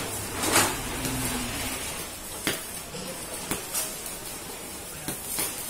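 Electric welding arc from an ARC 200 PRO welding machine crackling and sputtering, with irregular sharp pops, the loudest about half a second in.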